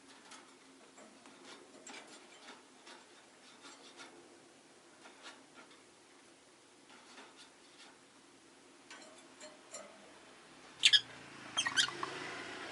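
Rosy-faced lovebird making faint scratchy clicks and ticks, then two short, sharp, loud chirps about two-thirds of the way through.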